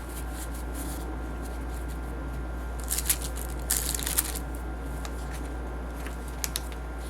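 Paper pages and tags of a handmade junk journal being handled and turned, with two short bouts of rustling about three to four seconds in and a couple of small taps near the end, over a steady low hum.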